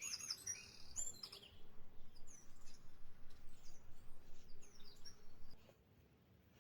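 Small songbirds chirping and twittering, busiest in the first second or so and then in scattered fainter calls, over a steady rush of river water. The sound drops away abruptly near the end.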